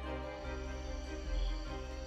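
Background music with long held tones, over a steady high insect chirring like crickets.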